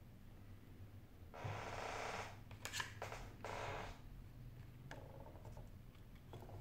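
Handling noise from small phone parts being fitted by hand: two short scraping, rustling sounds with a few small sharp clicks between them, as the main board and its fittings are pressed into place in the phone's frame.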